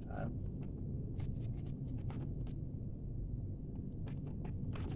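A sheet of A4 paper being handled and folded: short crisp rustles and crackles scattered through, over a steady low hum.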